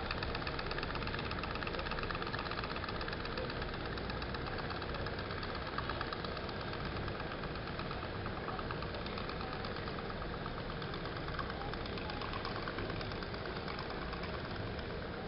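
Toy pop-pop steam boat's engine popping in a rapid, steady rhythm, growing fainter in the second half.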